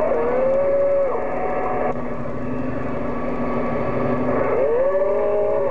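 CB radio receiver audio on the 11-meter band: a signal opens abruptly into steady static, with whistling heterodyne tones that slide in pitch and settle, over a low hum.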